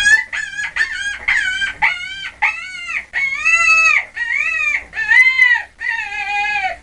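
An animal calling in a rapid series of about ten short, pitched, arching calls, one after another.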